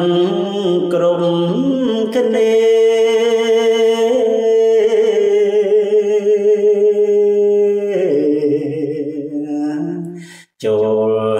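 A man chanting Khmer verse in the kakagati meter, in the lamenting pilap style: drawn-out notes with a wavering pitch, one held for several seconds. There is a short break for breath near the end.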